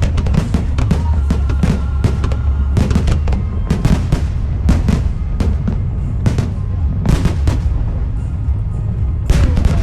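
Fireworks bursting in quick succession, a dense run of sharp bangs and crackles over a continuous low rumble, with music playing underneath.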